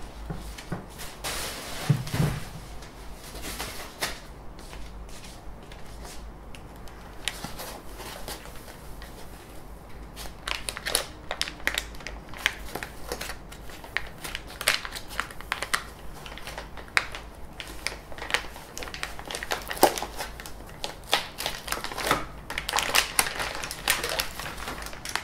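Plastic packaging bag crinkling and rustling as it is pulled off a 3D printer, in dense irregular crackles that grow busier in the second half. A single thump about two seconds in.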